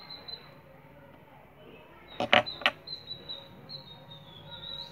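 Three sharp clicks in quick succession, a bit over two seconds in, over a faint, thin high tone that wavers slightly.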